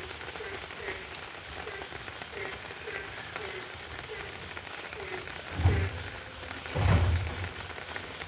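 Steady rain falling on a surface, with a faint regular drip-like tap about twice a second. Two dull low thumps stand out about two-thirds of the way through.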